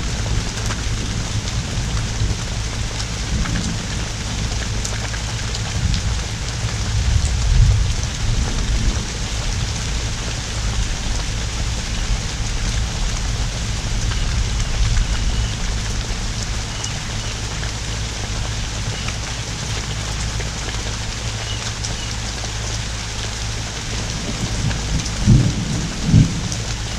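Heavy rain from one of Hurricane Ida's outer bands pouring down steadily, with a low rumble of thunder about seven seconds in. Two short, low thumps come near the end.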